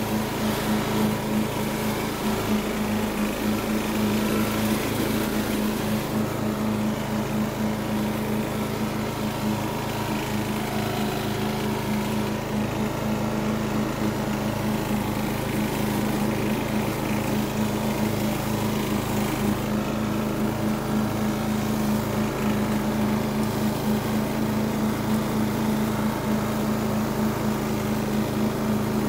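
Riding lawn mower's small engine running steadily at an even pitch as the mower drives across the lawn.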